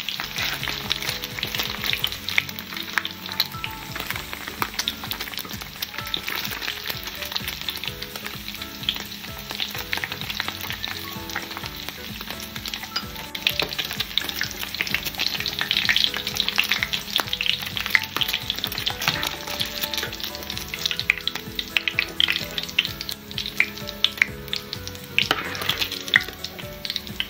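Paneer cubes sizzling and crackling in hot oil in a nonstick frying pan, with many sharp little spatters, while a metal slotted spoon stirs and scoops the pieces out of the pan.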